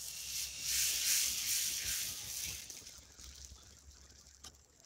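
Dosa batter sizzling on a hot dosa griddle as it is poured and spread out with a ladle. The hiss is strongest in the first couple of seconds and dies away about three seconds in.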